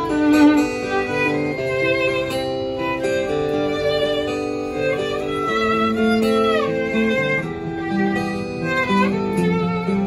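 Violin playing a melody over acoustic guitar accompaniment, with a note sliding down in pitch about six and a half seconds in.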